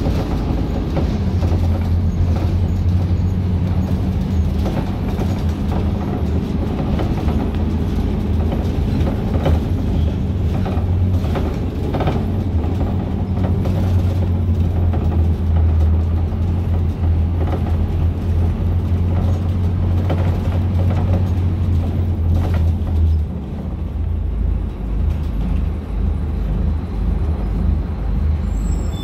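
Scania K250UB city bus's diesel engine and drivetrain heard from inside the cabin while riding: a steady low drone with occasional knocks and rattles. About 23 seconds in the drone drops and turns uneven.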